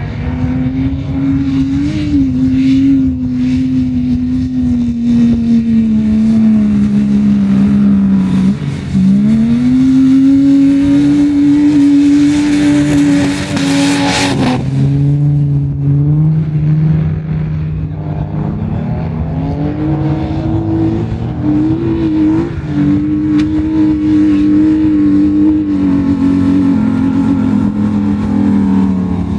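Off-road 4x4's engine revving hard under load in soft sand, its pitch sinking and climbing again and again with the throttle. A loud rushing hiss rides over it for a couple of seconds around the middle.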